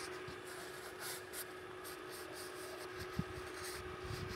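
Faint scratchy rubbing and rustling in short, irregular strokes, over a steady hum.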